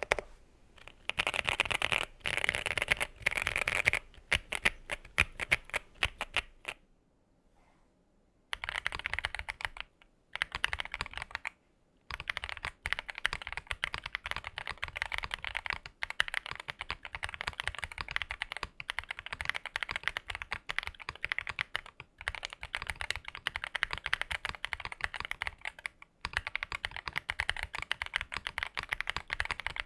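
Typing on a mechanical keyboard with Designer Studio Starry linear switches: a fast run of keystrokes, a brief pause about seven seconds in, then steady continuous typing.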